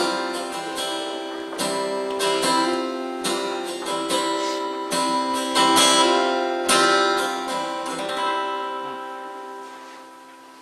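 Acoustic guitar strumming a slow run of chords to end the song. The last chord rings out and fades away near the end.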